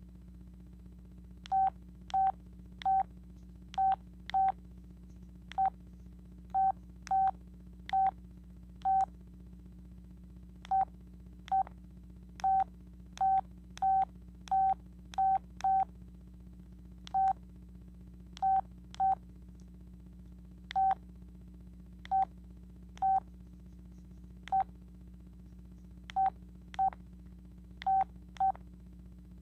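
Sanyo VI-2300 flip phone keypad beeping as its buttons are pressed: dozens of short beeps, all at the same pitch, at uneven intervals.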